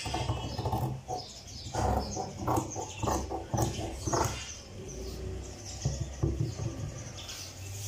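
Tailor's scissors cutting through folded cloth: a run of quick, uneven snips, most of them in the first half.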